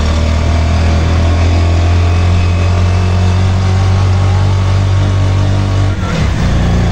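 Small engine of a motor-rickshaw (mototaxi) running steadily while riding, its low note dipping and falling briefly about six seconds in before settling again.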